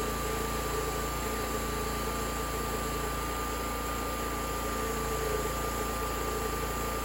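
Homemade wide band sawmill running steadily, its blade cutting through a large spruce log: an even mechanical noise with a constant whine.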